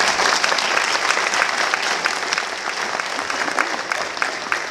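Audience applauding, breaking out all at once and thinning toward the end into more separate claps.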